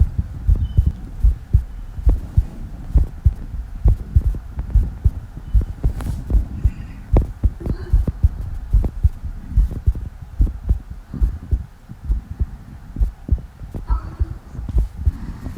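A human heartbeat picked up close to the chest: a fast, steady run of low, muffled thumps.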